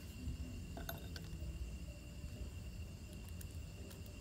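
Faint, steady trill of crickets at night, one thin unbroken high note, over a low hum, with a few faint clicks about a second in.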